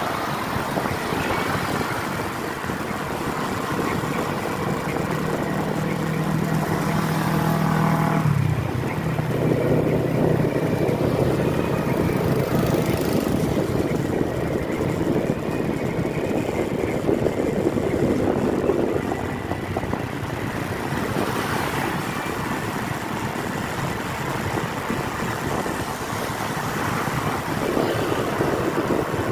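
Road traffic: vehicle engines running over steady road noise. One engine note holds steady for a few seconds and then falls away about eight seconds in.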